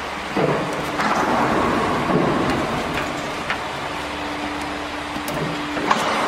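Steady workshop machine hum with a faint steady tone, under rustling as plastic coolant hoses are handled. A sharp click near the end as a hose is pushed into one of the water chiller's push-in fittings.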